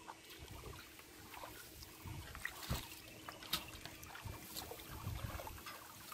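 Small, scattered splashes and sloshing of shallow water as bare feet wade and hands grope through a flooded rice paddy.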